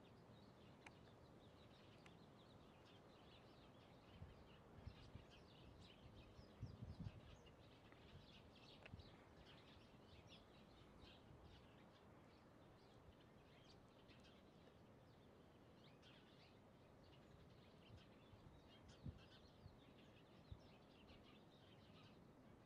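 Near silence: faint outdoor background with distant birds chirping, and a few soft low thumps.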